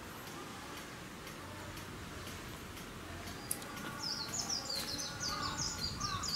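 A bird calling in a quick run of high chirps that starts about four seconds in, over a steady outdoor background hiss. There is a single sharp click just before the chirping.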